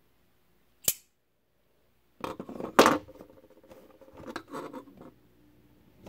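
Bestech Engine Bowie titanium framelock folding knife flipped open on its ball-bearing pivot, the blade snapping into lock with one sharp click about a second in. About two seconds later comes a knock and rattle as the knife is set down on its cardboard box, then a few lighter handling clicks.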